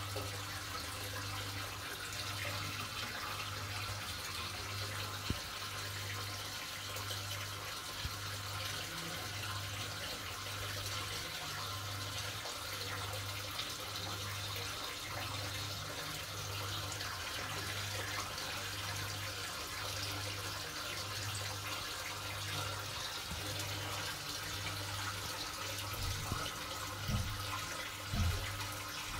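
Aquarium water circulating with a steady hiss, under a low pump hum that swells and fades about once a second, typical of a wavemaker pump on a pulsing setting. A few soft knocks come near the end.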